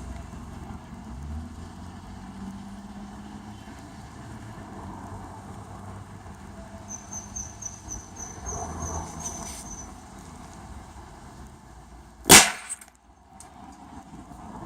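Homemade airsoft land mine going off with a single sharp bang about twelve seconds in, the loudest thing by far. Before it there is low handling and background noise, with a quick run of faint high ticks about halfway through.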